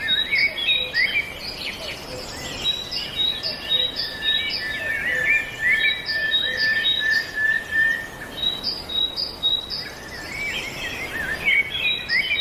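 Several birds singing and twittering together, one repeating a short high note about three times a second. A steady high tone holds underneath from about two seconds in to about eight.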